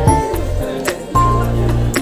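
Background music with a bass line, melodic notes and a regular beat.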